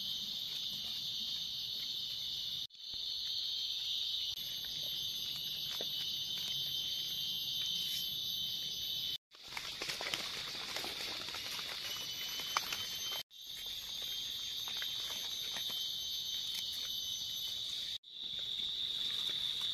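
Steady high-pitched chorus of night insects such as crickets, broken by a few sudden cuts, with faint rustling and clicks of hands in leaf litter around the middle.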